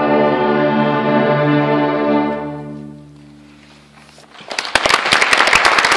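An orchestra holds a final chord that dies away about two and a half seconds in. After a short hush, an audience breaks into applause.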